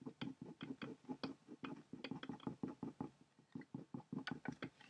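A pen scribbling on paper in quick short back-and-forth strokes, about six a second, colouring in a drawing.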